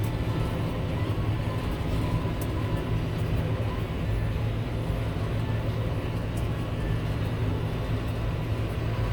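Tractor engine running steadily under load while hauling a forage cart on the road, heard from inside the cab as an even low drone.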